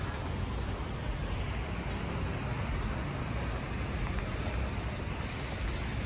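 Steady outdoor background noise: a low rumble under an even hiss, with no distinct events.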